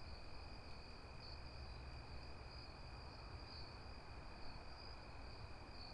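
Faint chorus of crickets or similar night insects, a steady high trill, with a low rumble beneath.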